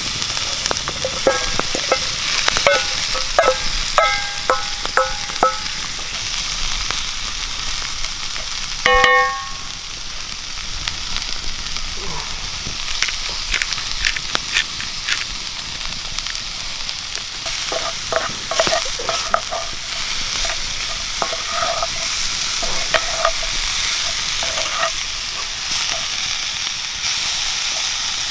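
Vegetables and tofu sizzling in a frying pan while being stirred, with a utensil scraping and clicking against the pan. There are a few light metallic pings in the first few seconds and one ringing clank about nine seconds in.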